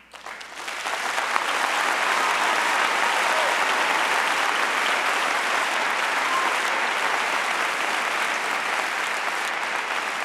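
A large audience applauding, swelling in over the first second or so and then holding steady.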